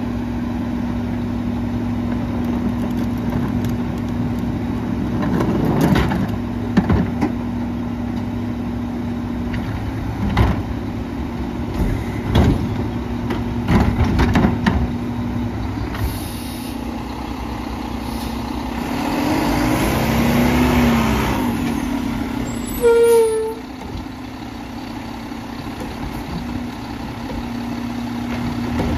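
Mack LEU garbage truck with a McNeilus Contender body and Curotto-Can arm idling with a steady engine hum, with several clunks of wheeled carts being handled in the first half. The engine swells about two-thirds through, then a short loud air-brake hiss sounds.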